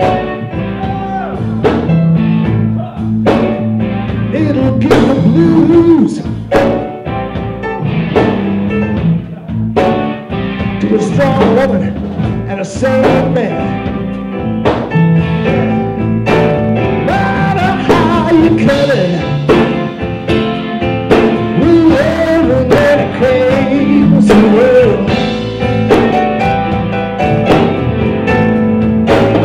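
Live blues-rock band playing, with electric guitar, five-string electric bass and a drum kit keeping a steady beat.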